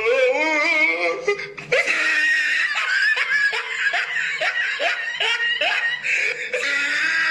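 Sound-effect laughter: a high-pitched, wavering laugh that cuts off after about a second and a half into a different laugh, a rhythmic string of ha-ha syllables about two to three a second, with another laugh clip starting near the end.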